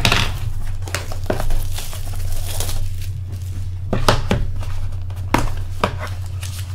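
A shrink-wrapped cardboard trading-card box being torn open by hand: plastic wrap crinkling and cardboard tearing, with several sharp snaps. A steady low hum runs underneath.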